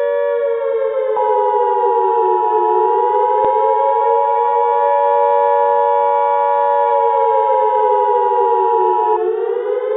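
Civil defense siren wailing, its pitch slowly falling and rising, with a steady higher tone that comes in about a second in and stops near the end.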